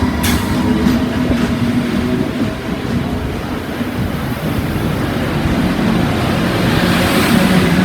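Class 73 electro-diesel locomotive pulling away with a railhead treatment train: a steady low drone, with a sharp click just after the start and a hiss building near the end.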